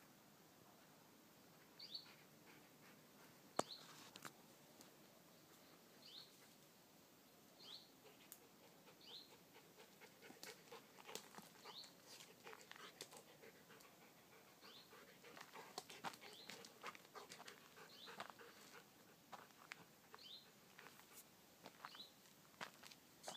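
Faint sounds on a dirt trail: a short, high chirp that repeats about every second and a half, and from about halfway through, soft crunching scuffs of steps and a dog moving over the gravelly dirt close by.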